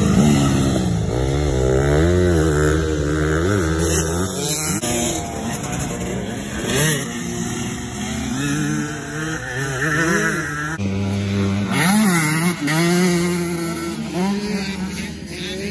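Motocross dirt bike engine revving up and down as the rider accelerates and shifts, its pitch rising and falling again and again. A different engine note takes over abruptly about eleven seconds in.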